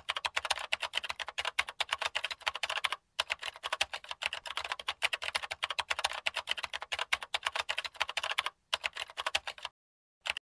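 Rapid computer-keyboard typing clicks, a quick run of keystrokes with short breaks about three seconds in and again near the end, where they stop after one last short burst.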